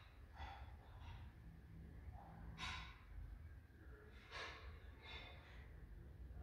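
Near silence with a low room hum and four faint breaths close to the microphone.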